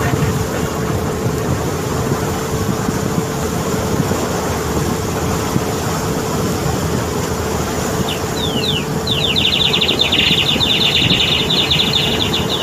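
A boat's engine running steadily under the rush of its wake water, with a faint steady hum. About eight seconds in, a fast, high, rapidly repeating trill joins.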